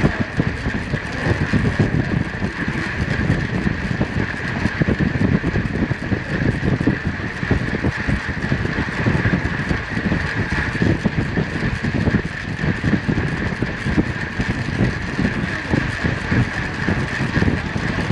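Wind rushing and buffeting over the microphone of a camera carried on a track bike at about 33 mph, with a steady higher hum running underneath.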